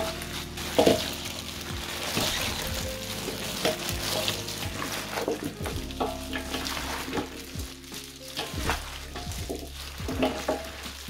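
Food being stirred or tossed in a bowl: a wet, crackling rustle with many small clicks, under quiet background music.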